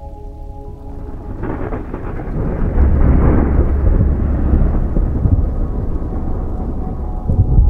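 Rolling thunder over a hiss of rain, building about a second and a half in, loudest in the middle and dying away near the end. Soft ambient music with held notes drops out under it and comes back near the end.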